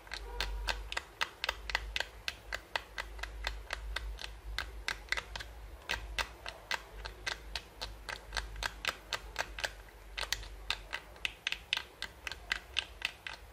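A sharp tool scraping the contact pins of a laptop keyboard flex cable in quick short strokes, about four clicks a second. The cable is taped to the metal lid of a hard drive as a hard backing. The scraping strips the cable's insulating layer to bare its conductors for repair.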